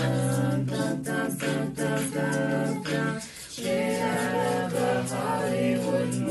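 A cappella vocal group singing held chords in close harmony over a low sung bass line, with a steady percussive beat. About halfway through the voices drop away briefly, then come back in on a new chord.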